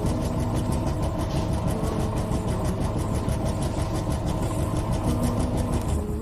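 A loud, steady engine-like rumble made of very fast, even pulses, with a steady hum over it; it stops at the very end.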